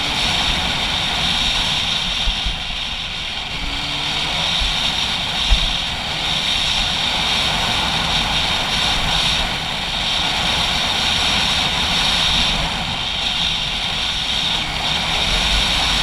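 Dirt bike engine running steadily on the road, with low wind buffeting on the camera microphone.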